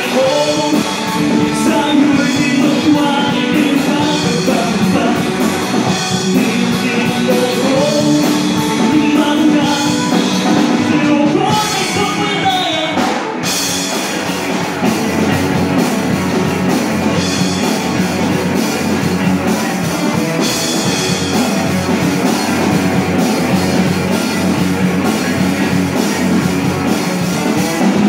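Live rock band playing with guitars and a drum kit.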